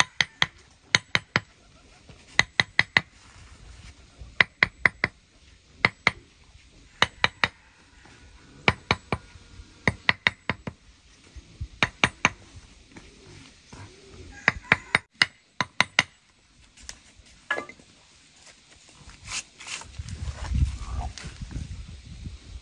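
Hammer tapping concrete blocks down into their mortar bed: sharp, ringing taps in quick groups of two to four, about once a second, for most of the time, then softer, irregular noises with a low thump near the end. Doves coo faintly in the background.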